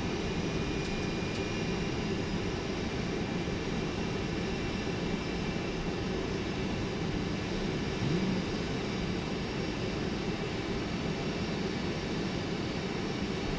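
Steady drone of a Boeing 747 heard from its cockpit while taxiing: engines at low thrust mixed with air and fan noise. There is a brief low swell about eight seconds in.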